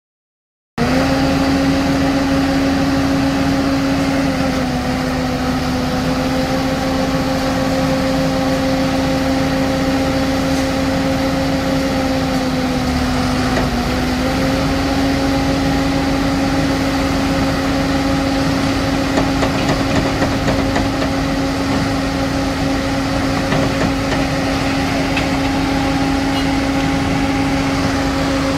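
Schwing Stetter SLM 4300 self-loading concrete mixer running its engine and hydraulics at steady revs, a loud even drone with one clear pitch, while the loading bucket is raised. The drone starts just under a second in, and its pitch sags briefly twice, about four and about thirteen seconds in.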